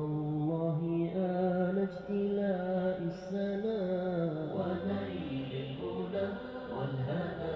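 A voice singing an Arabic Islamic nasheed, drawing out long held notes that step and slide from pitch to pitch, with no words to be made out.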